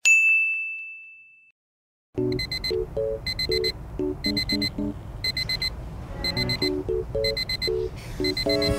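A single bright chime that fades away over about a second and a half, then, after a short silence, an alarm clock beeping in quick bursts of short high beeps, about one burst a second, over a soft melody.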